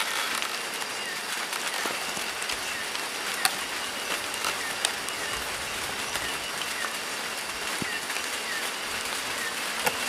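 Steady even hiss of outdoor night ambience, with a faint short chirp repeating about every two-thirds of a second and scattered light clicks and taps.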